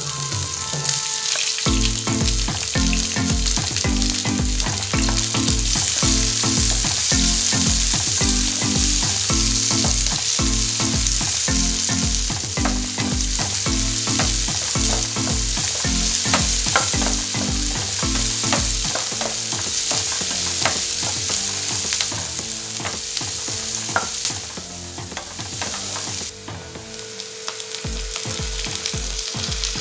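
Sliced onions sizzling and crackling in hot oil in a nonstick pan while being stirred with a wooden spatula. The sizzle quietens about 26 seconds in.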